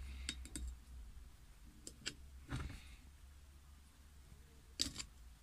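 Scattered small clicks and taps of a screwdriver and a rubber grommet working against a glass bottle as the grommet is pushed into a hole in the glass; the loudest is a quick pair of clicks near the end.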